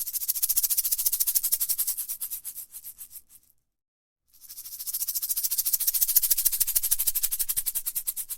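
A fast, dry, rattling buzz made of many rapid pulses, high-pitched, in two long bouts that swell and fade with a silent gap of about a second between them.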